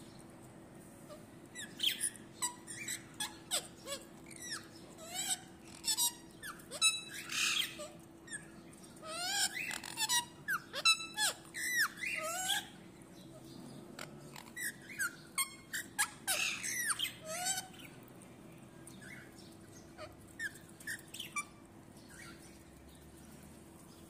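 Green ringneck parrot chattering: a quick run of short chirps, rising and falling whistles and harsh squawks, busiest from about two seconds in to about eighteen seconds, then sparser, over a faint steady hum.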